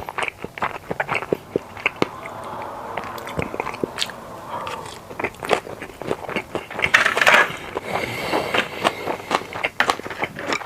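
Close-miked chewing and mouth sounds of a person eating sushi: a quick, uneven run of wet clicks and smacks, with a louder noisy burst about seven seconds in.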